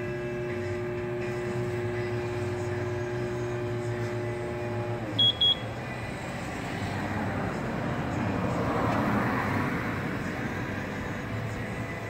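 Electric drive motor of a Droptail power tailgate spoiler running with a steady hum, then winding down and stopping about five seconds in, followed by two short high beeps. After that comes a rush of noise that swells and fades over a few seconds.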